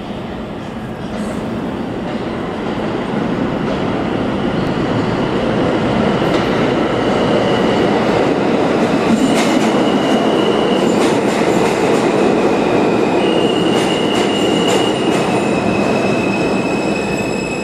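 R160 subway train pulling into an underground station: its rumble builds as it approaches, then holds steady as the cars roll along the platform. From about six seconds in there are rail clicks and intermittent high squeals as the train slows.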